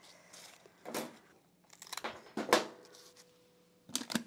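Hands working rose stems: a few short, crisp snips and crunches, the loudest about two and a half seconds in and two quick ones near the end.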